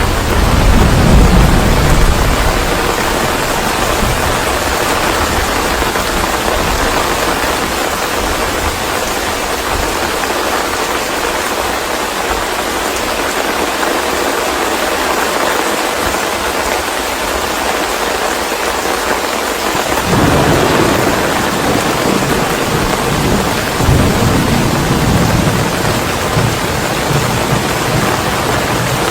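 Steady heavy rain with thunder rumbling low beneath it, at the start and again about twenty seconds in.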